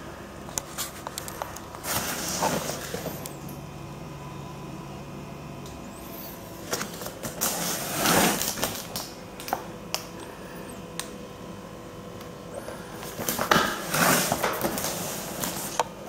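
Cardboard box being turned and shifted in the hands: rubbing and scraping noises in a few short bursts, about two seconds in, around eight seconds in and again near the end, with scattered small knocks and clicks between them.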